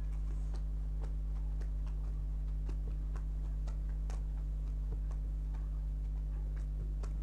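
Playing cards being flipped down one after another in a game of Snap: light clicks about twice a second, slightly irregular, over a steady low electrical hum.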